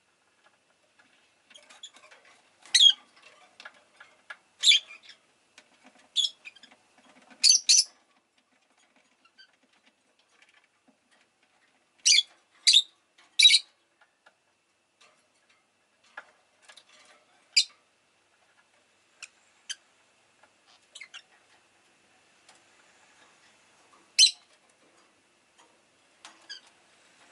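Rosy-faced lovebird giving short, sharp, high-pitched chirps, some single and some in quick runs of two or three, with pauses of quiet between.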